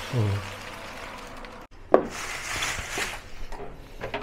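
Brown sugar pouring from a plastic bag into a pot of water, a soft steady rustle. About two seconds in there is a sharp clink of a metal spoon on a ceramic bowl, then about a second of stirring and a few light knocks.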